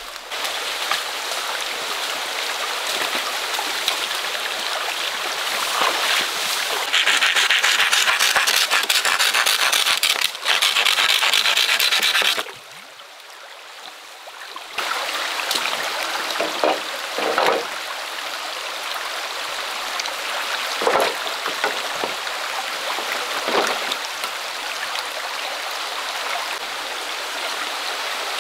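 Stream water running steadily, with a few brief knocks and rubs now and then. The water sound grows louder and hissier for about five seconds, then drops away sharply for a couple of seconds near the middle.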